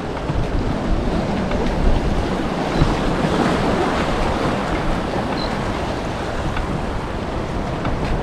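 Strong wind buffeting the microphone in gusts over the steady wash of surf, with a swell of noise about three to four seconds in.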